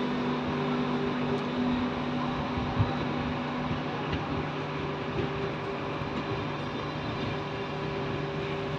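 Train running: a steady rumbling noise with a constant drone of several held tones, one of which drops out about four seconds in, and a single knock a little before three seconds.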